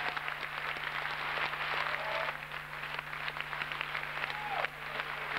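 Theatre audience applauding, a dense patter of many hands clapping after a musical number ends, with a couple of short falling calls from the crowd.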